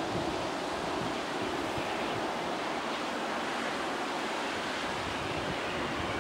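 Steady rushing roar of a distant jet airliner's engines as it lands and rolls out, with strong wind buffeting the microphone.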